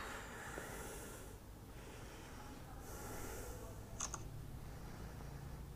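Faint background hiss, then about four seconds in a short double click: a Samsung Galaxy S8's camera shutter sound as a photo is taken.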